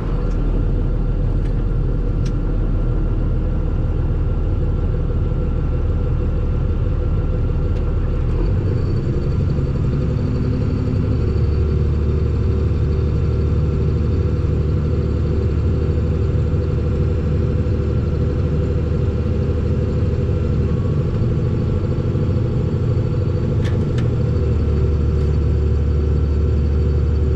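Engine of a farm vehicle running steadily, heard from inside its cab while it drives a bumpy field road. The engine note shifts a few times along the way.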